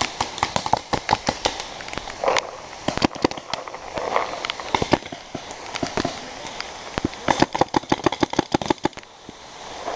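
Paintball markers firing quick strings of sharp shots, several bursts with the densest string near the end.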